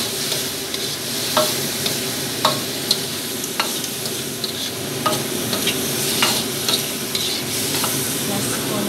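Tofu, leeks and pork stir-frying in a wok: a steady sizzle, with the metal spatula knocking and scraping against the pan about once a second.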